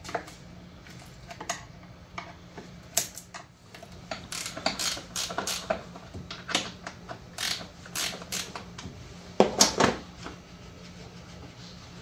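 Irregular clicking and light clatter of hand tools and plastic fasteners being worked loose in an engine bay, with a louder burst of knocks near the end. A low steady hum runs underneath.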